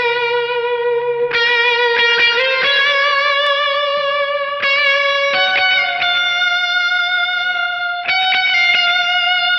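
Electric guitar played through a Tone City Tiny Spring reverb pedal that is switched on: a slow lead line of long single notes held with vibrato, with a couple of string bends about two seconds in.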